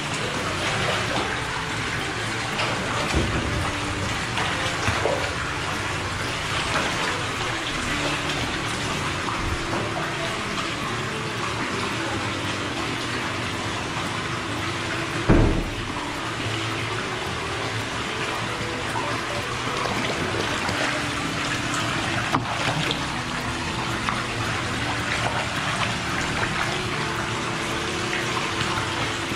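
Water splashing and sloshing in a shallow pool as otters wrestle and swim, over a steady rush of water. There is one sharp knock about halfway through.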